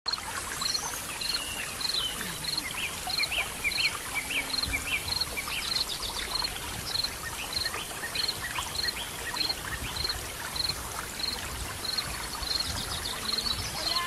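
Waterfall rushing in a steady hiss, with birds chirping in the forest and a short high note repeating steadily, a little slower than twice a second.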